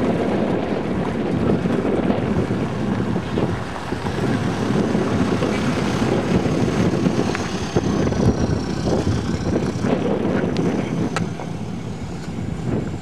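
SUV engines running and tyres rolling on a dirt road, a steady rumble with wind buffeting the microphone.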